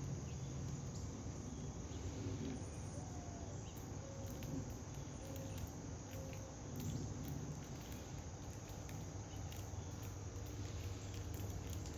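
Outdoor ambience of steady cricket chirring, with faint light pattering and rustling.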